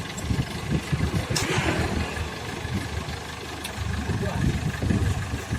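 Rice combine harvester's engine running.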